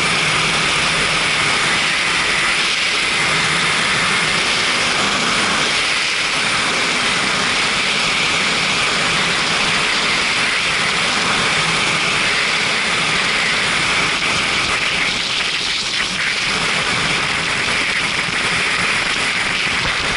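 Steady rush of wind over the microphone on a moving motorcycle, with the Kawasaki Ninja 300's parallel-twin engine running underneath.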